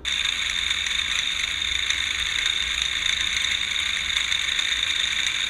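Small quadcopter drone's micro motors and propellers spinning, a steady high-pitched whine.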